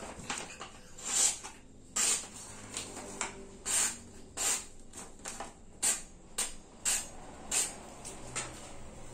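Freshly honed sickle blade slicing through a sheet of hand-held paper: about a dozen short, crisp swishes, one every half second to a second. The clean cuts are a sharpness test after honing with a sharpening stick.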